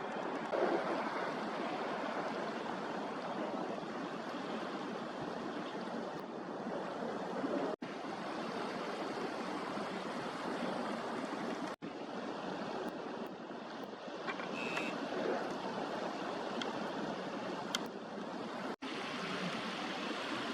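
Sea water washing against the shore, a steady rush that breaks off for an instant three times.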